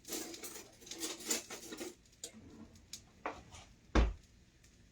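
Kitchen drawer and cutlery clattering for about two seconds as a fork is fetched, then a few sharp clicks and a loud heavy thud about four seconds in.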